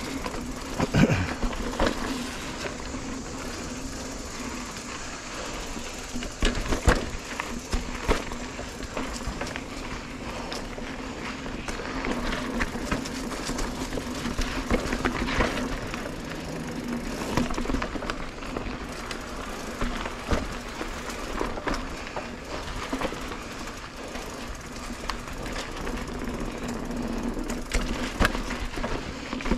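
Mountain bike rolling down a dirt singletrack: tyres on dirt and roots with a steady rumble, and the bike's chain and frame rattling and knocking over bumps.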